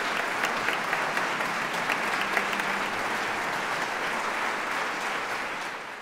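A large concert audience applauding, a dense steady patter of many hands clapping that fades out near the end.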